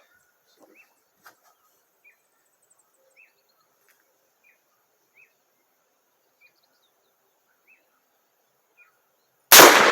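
Faint short bird chirps about once a second, then a single very loud rifle shot near the end: a .50 Beowulf round fired from an AR-15, ringing out for over a second afterwards.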